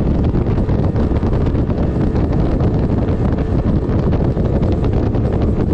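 Wind buffeting the microphone in a steady low rumble, over a boat motor running at slow trolling speed.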